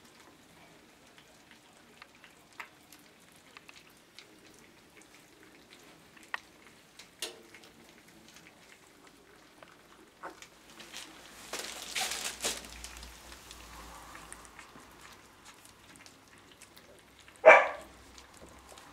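Seventeen-day-old wirehaired dachshund puppies feeding from a bowl: faint scattered clicks, a brief rustling noise partway through, and one short, loud puppy yelp near the end.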